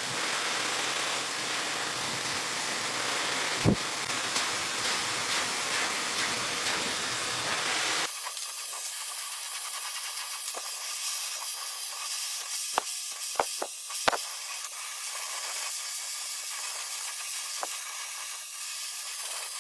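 High-speed hair dryer blowing steadily, a hissing rush of air. About eight seconds in the low part of the sound drops away, leaving a thinner, higher hiss with a faint whine, and a few short clicks come through.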